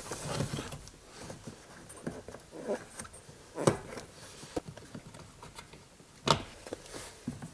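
Plastic retaining clips being pressed and twisted out by hand from a car's inner shifter boot, with light handling and rustling of the plastic trim. Scattered small clicks, the two sharpest about three and a half and six seconds in.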